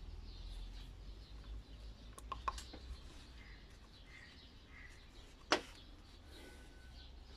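Brass power-sprayer pump parts and rubber seals handled by gloved hands: a few small clicks, then one sharp knock about five and a half seconds in, the loudest sound. Under it run a low steady hum and a few faint high chirps.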